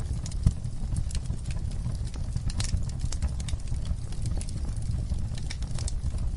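Fireplace fire crackling: irregular sharp pops and snaps over a steady low roar of flames.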